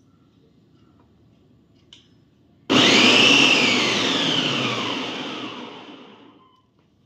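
Preethi Zodiac mixer grinder's motor, fitted with its citrus juicer attachment, switched on abruptly and then spinning down, its whine falling in pitch as it fades out over about three seconds. A small click comes just before it starts.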